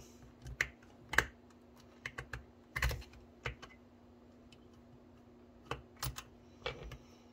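Irregular small plastic clicks and taps as fingers and fingernails handle an HO-scale model locomotive's plastic chassis and coupler, a few at a time with short gaps.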